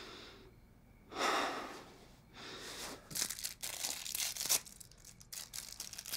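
A heavy breath about a second in, then a couple of seconds of rapid crinkling and tearing as medicine packaging is opened by hand.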